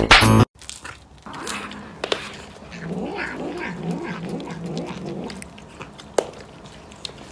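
Tabby cat yowling in a long, wavering run of calls that rise and fall in pitch, with a sharp click about two seconds in and another near the end. Before that, loud music with laughter plays for the first half second and cuts off suddenly.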